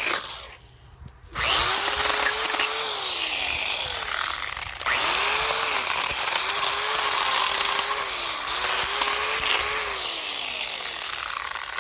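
Small plug-in electric chainsaw cutting through dry limbs in long bursts, stopping briefly just after the start and again about five seconds in. The motor's hum rises as the trigger is pulled and falls away as it is let go.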